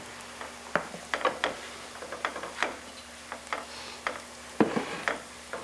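Irregular light knocks and clicks of food preparation at a counter, about two or three a second: a kitchen knife tapping on a cutting board, with a measuring cup and jars being handled.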